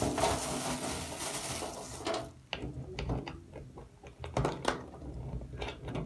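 Hands pushing small pieces of uda (negro pepper) into a plastic water bottle: a rustling hiss for about the first two seconds, then scattered light clicks and taps against the plastic.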